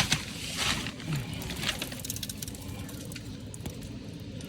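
Steady low hum of a dryer-vent cleaning vacuum running in the background, with short rustling and scraping handling noises from movement in a crawl space, mostly in the first two seconds.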